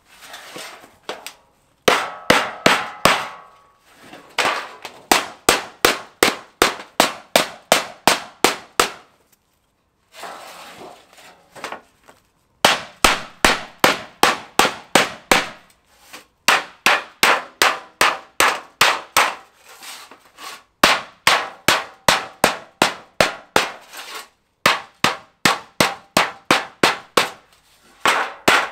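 Hammer blows on a strip of scrap sheet metal laid over a board, about three strikes a second in runs broken by short pauses, each strike a sharp metallic clang. The metal is being beaten flat for use as a concrete form board.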